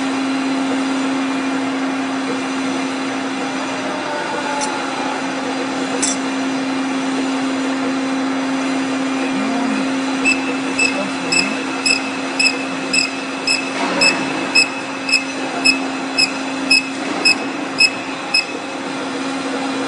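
Lathe running with a steady motor hum. About halfway through, a regular series of short high-pitched pips starts, about two a second, and stops after some eight seconds.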